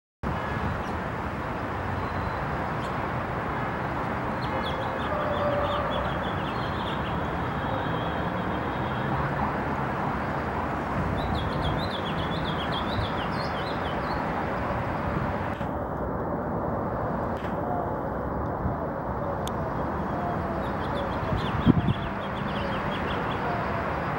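House finch singing quick warbling phrases in three spells, over a steady hum of city traffic, with pigeons cooing low. A brief sharp knock near the end.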